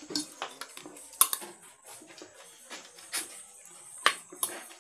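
Spoons clinking and scraping on ceramic plates as several people eat, with a run of small, sharp clinks, the loudest about a second in and again near the end.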